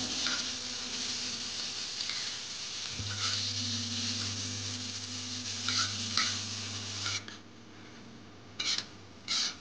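Food sizzling in a frying pan, with a spatula stirring and scraping against the pan. The sizzle drops away about seven seconds in, leaving a few short scrapes near the end.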